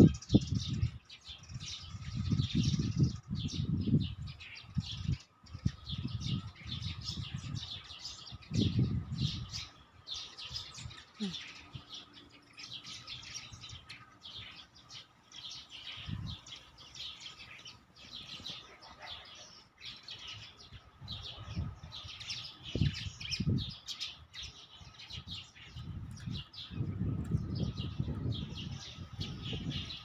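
Many small birds chirping and twittering at once in the trees, a dense, continuous high chatter. Low rumbles come and go several times underneath.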